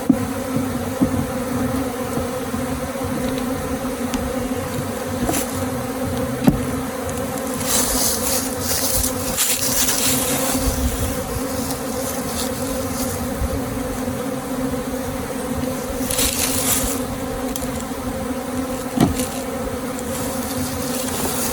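A mass of honey bees from a swarm buzzing, a steady, even hum. Brief hissing noises come and go twice, about eight and sixteen seconds in.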